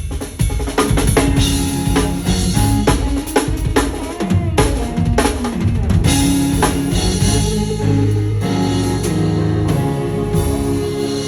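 Drum kit played hard over a gospel backing track: bass drum, snare and rimshot hits fill the first half, then thin out later while the track's bass and keys carry on.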